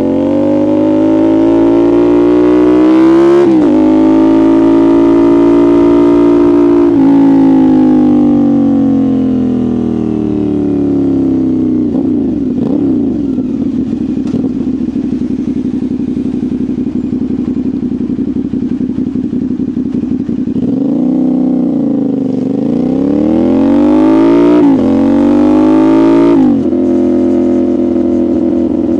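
CFMoto 450SR's parallel-twin engine heard through its exhaust. It accelerates hard with an upshift about three seconds in, then the revs fall away slowly and the engine runs steadily. Near the end it pulls up through the revs again with two quick upshifts before settling.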